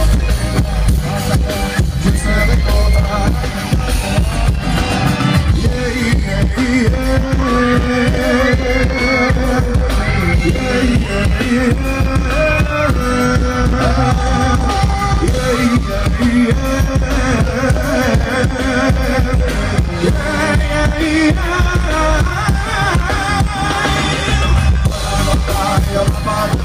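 Live band music heard from the audience: acoustic and electric guitars with drums, and a sung melody carried over them.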